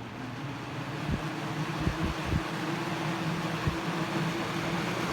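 Galaxy Model 3712 12-inch box fan running with a steady buzzing hum and rush of air, the kind of sound collectors liken to a beehive, growing louder as the motor picks up speed after being switched back to high. A few soft low thumps come through.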